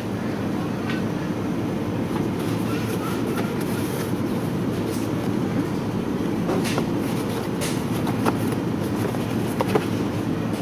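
Steady low hum and rumble of supermarket background noise, with a few light clicks as a cardboard egg carton is handled, the loudest of them in the second half.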